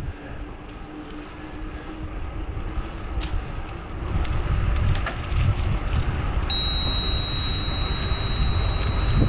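Wind buffeting the microphone and tyre rumble from a bicycle rolling on asphalt, growing louder about halfway through as the bike picks up speed. A steady high-pitched tone starts suddenly past the middle and holds on.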